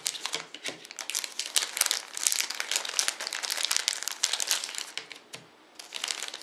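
Clear plastic packaging crinkling and crackling as it is peeled open by hand, a dense run of crackles with a brief pause about five seconds in.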